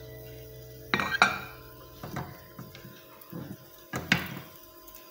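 Wooden spatula scraping and knocking against a nonstick pan and a serving plate as French toast is lifted across: two sharp clinks about a second in, another near four seconds, with lighter scrapes between.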